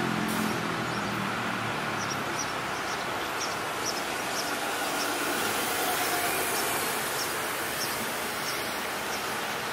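Busy road traffic: a heavy truck's engine passing and fading away in the first two seconds, then a steady hiss of cars and tyres, while an Alstom Citadis 'Sirio' tram approaches along its track.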